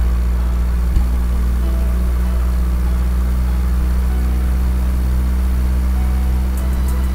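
Vehicle engine idling steadily with a low, even rumble, a cartoon sound effect; a small click about a second in.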